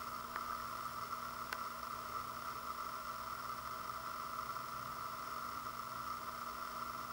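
Steady background hiss with a faint low hum, unchanging, broken only by a couple of faint ticks in the first two seconds.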